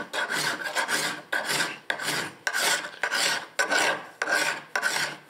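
A hand file draw-filing the rusty, pitted steel spine of an old drawknife, pulled in rasping strokes about twice a second, each stroke carrying a steady high note. The file is cutting through rust to smooth the back of the tool.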